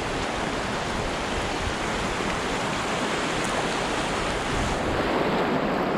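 River rapids rushing steadily around a canoe, an even, unbroken hiss of white water.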